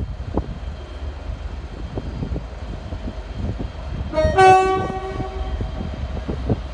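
Train passing with its wheels clicking and knocking over the rail joints, over a steady low rumble. About four seconds in, its horn sounds once for about a second and is the loudest thing heard.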